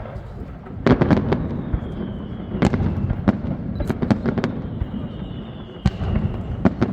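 Fireworks display bursting: a rapid cluster of sharp bangs about a second in, then single booming bursts every second or so, each followed by a rumble.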